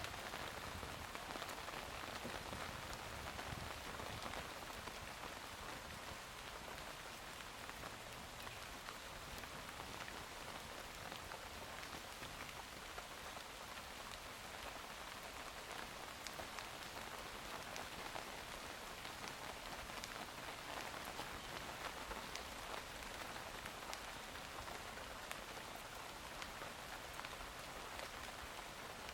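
Steady rain falling, an even hiss of rain on surfaces with many small individual drop ticks throughout.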